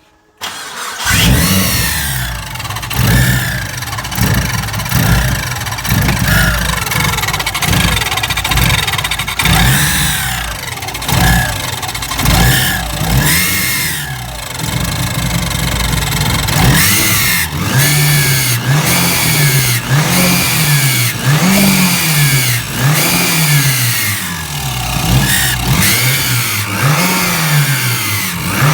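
Mitsubishi Lancer Evo VI's turbocharged 2.0-litre four-cylinder engine revved again and again, the revs climbing and falling about every second and a half later on. It screeches as the revs come back down off the throttle, and the revs are slow to recover, the sign of the running problem being chased.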